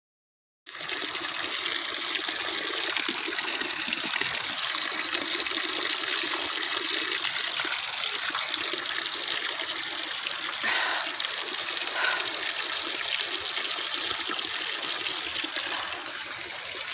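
Running water of a river or stream, a steady rushing and trickling that cuts in abruptly about a second in.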